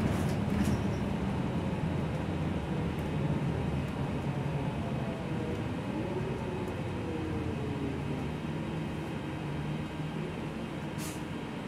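Gillig low-floor city bus's engine and drivetrain running while it drives, heard from inside the cabin. It is a steady low hum with a whine that glides in pitch midway as the bus changes speed, and brief hisses just after the start and near the end.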